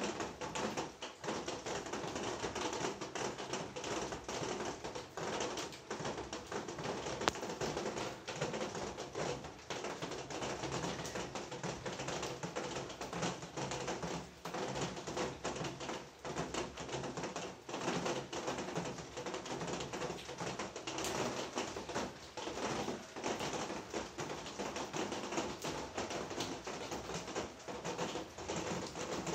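Steady rain with a dense, irregular pattering of drops tapping on hard surfaces.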